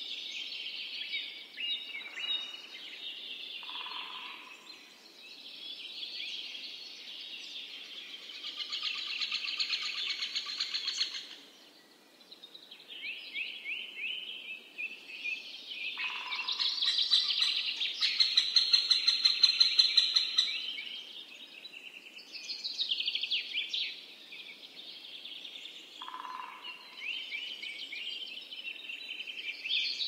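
Birds singing and chirping, with rapid high trills that overlap almost without pause. The song is loudest a little past halfway.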